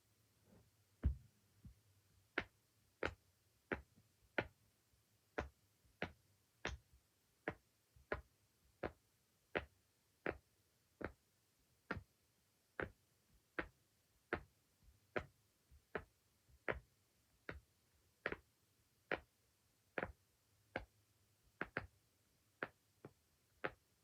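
Silicone pop-it fidget toy being popped bubble by bubble: single sharp pops at about one and a half a second, slightly uneven in pace and strength.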